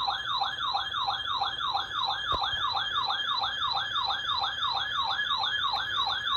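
Weather radio alert alarm going off for a severe thunderstorm warning: an electronic siren-like tone that sweeps downward over and over, about three times a second, at a steady level.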